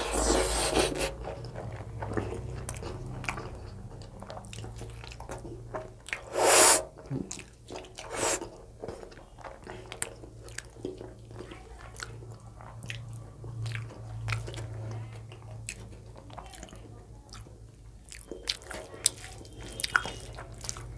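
Close-up eating sounds: a person chewing and biting through a meal of rice, dal and fried vegetables, with many small wet clicks and smacks. About six and a half seconds in comes one louder, sudden noise lasting about half a second.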